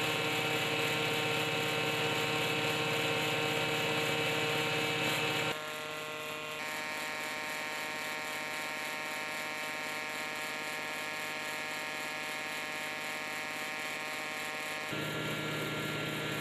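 Power tiller engine running a chaff cutter cum chipper: a steady buzzing hum made of several steady tones. It drops abruptly in level and tone about five and a half seconds in and comes back up near the end.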